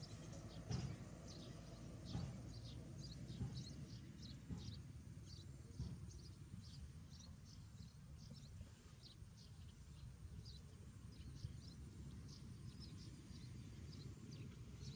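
Short, high-pitched animal chirps repeating about two a second over a low rumble, with a few soft knocks in the first six seconds.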